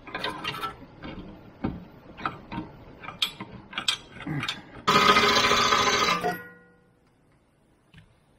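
Metal clicks and knocks of a ring spanner working a bolt on a car's suspension arm. About five seconds in comes a sudden, much louder burst lasting about a second and a half, with ringing tones fading out after it.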